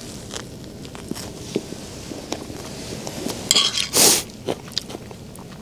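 Biting into a crusty baguette sandwich (jambon-beurre): a loud crunch through the crust about four seconds in, with a shorter one just before it, and small clicks and rustles around them.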